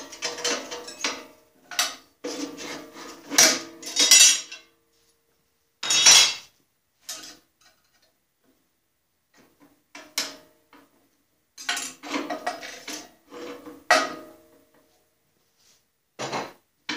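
Metal parts clinking, clanking and scraping as the old blade guard and upper blade guide hardware are worked loose and taken off a Delta bandsaw, some knocks ringing briefly, with a pause of about two seconds midway.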